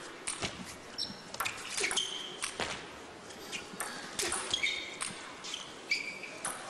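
Table tennis rally: the ball striking the rackets and the table in a quick, irregular run of sharp ticks, many with a short high ring.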